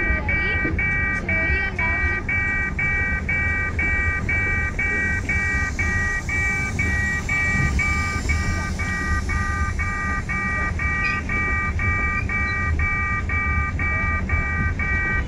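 Electronic level-crossing warning bell beeping steadily, about three times a second, over the low, continuous rumble of loaded freight wagons rolling past on the rails.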